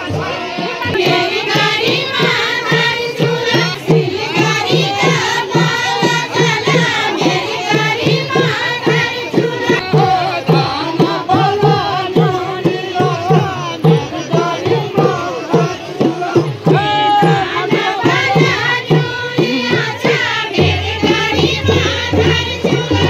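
Group of villagers singing a Kumaoni chanchari folk song together, accompanied by a small two-headed hand drum beating a steady dance rhythm.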